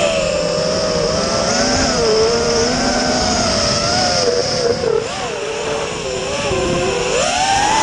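Electric motors and propellers of a ThuG220 FPV racing quadcopter, a steady whine whose pitch wavers up and down with the throttle, then climbs sharply near the end as the quad punches up.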